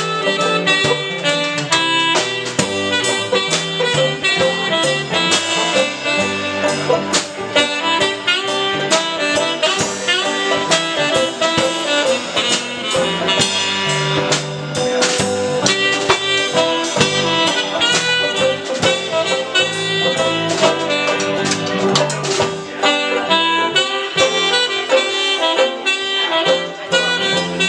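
Live band playing an instrumental break with no vocals: saxophone over strummed acoustic guitar and a drum kit keeping a steady beat.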